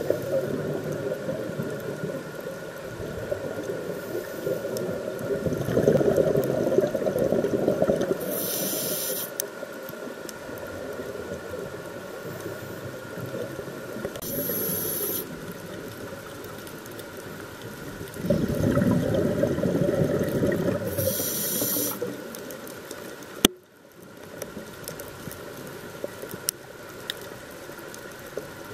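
Scuba diver breathing through a regulator underwater. There are three short high hisses of inhalation about six seconds apart, and between them the low rush of exhaled bubbles, over a faint steady hum.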